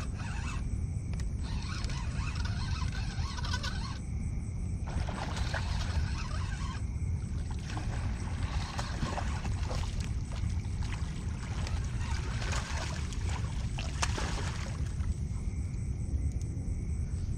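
A fishing reel is cranked in stretches with short pauses, bringing in line against a hooked catfish on a heavily bent rod. A steady low rumble runs underneath.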